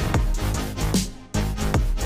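Electronic dance music with a heavy bass beat and falling pitch sweeps. It drops out briefly a little past the middle and comes back on a hard hit.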